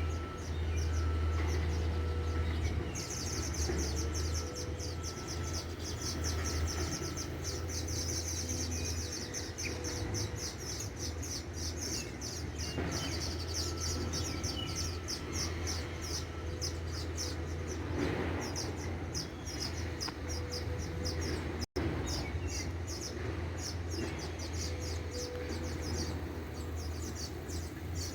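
A flock of small birds chirping in a busy, rapid chorus of high notes, which grows dense about three seconds in, over a steady low hum.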